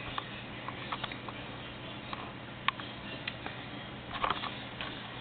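Quiet room tone: a steady low hum and hiss, with a few faint scattered clicks.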